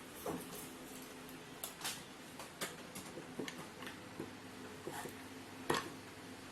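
Irregular light clicks and taps of hands handling a smartphone and its accessories, one sharper click near the end, over a faint steady hum.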